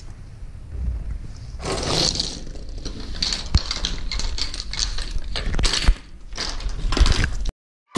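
Plastic fidget spinners being handled and shuffled on a wooden tabletop: scraping and rustling with a few sharp clicks and knocks. The sound cuts off suddenly near the end.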